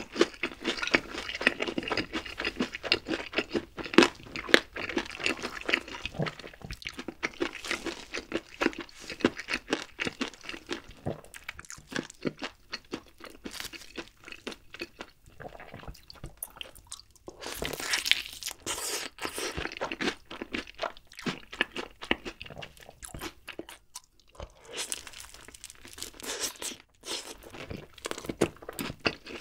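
Close-miked chewing and crunching of crispy, sweet-glazed fried chicken: a dense run of crackling crunches, easing off twice, with a loud burst of crunching about 18 seconds in and another near the end as a fresh piece is bitten.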